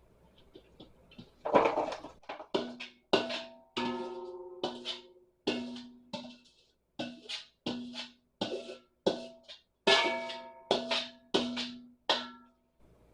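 Background music: a run of sharp drum-like hits with pitched notes ringing under them, starting about a second and a half in and stopping just before the end.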